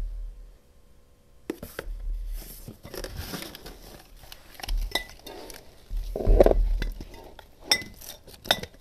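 Craft supplies being rummaged through and handled off to the side: scattered clinks, knocks and rustling, with low bumps on the table, loudest in a clattering stretch about six seconds in.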